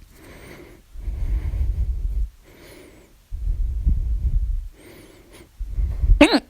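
A woman breathing heavily in and out several times during a bout of hiccups, then one sudden, loud voiced hiccup near the end.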